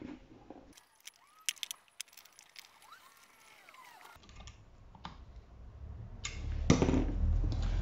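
Small metal carburettor parts clicking and tapping against each other in the hands, in a quick irregular run of sharp ticks, as the diaphragm cover of a Keihin 26/30 DC carburettor is fitted back in place.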